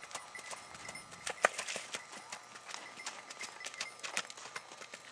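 Hoofbeats of a gaited Tennessee Walking Horse filly shod with plain steel keg shoes, clip-clopping on a gravel track in a quick, even series of sharp strikes. The sharpest strike comes about a second and a half in.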